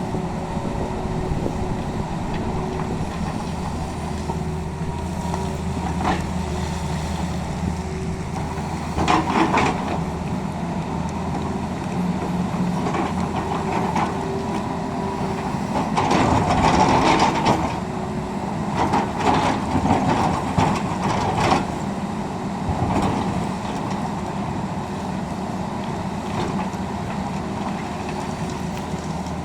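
Tata Hitachi excavator's diesel engine running steadily, with louder stretches about a third of the way in and again through the middle as the machine works the ground.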